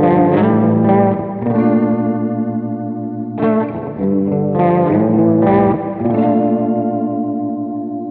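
Electric guitar played through an EarthQuaker Devices Aurelius tri-voice chorus pedal. Chords are struck every second or two and left to ring, and the sustained notes waver with the chorus.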